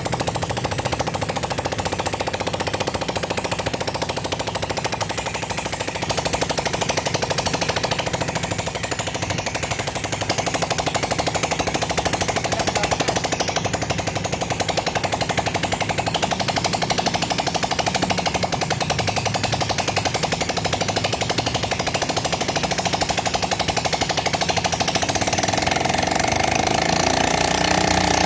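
Yamaha Mio Sporty scooter's air-cooled single-cylinder engine running close up, a rapid, steady mechanical clatter that gets a little louder about six seconds in and again near the end.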